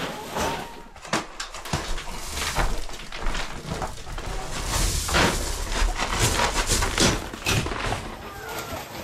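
Wood stove pellets poured from a sack, rattling and scattering in a stream of irregular clicks onto a pellet-covered floor, with the sack rustling and boots crunching through the pellet bedding.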